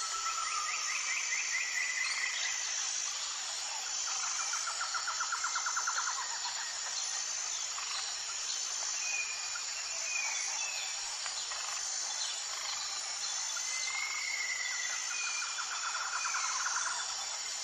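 Birds calling over a steady, high-pitched insect chorus that pulses evenly. A fast buzzy trill sounds about four seconds in and again near the end, with short whistles in between.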